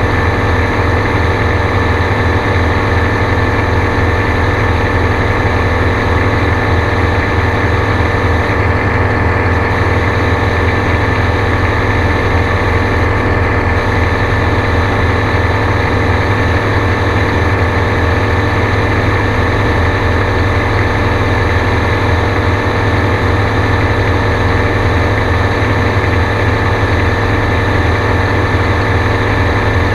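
Gyrocopter's engine and propeller running at a steady pitch, a loud, even drone with no change in speed.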